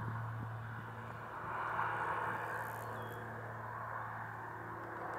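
Tecnam P2012 Traveller's twin six-cylinder Lycoming piston engines and propellers droning steadily at takeoff-climb power: a low steady hum with a rushing noise over it that swells about two seconds in.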